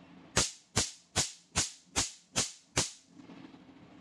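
Picosecond laser firing seven pulses onto black test paper: seven sharp snaps, about two and a half a second, each dying away quickly.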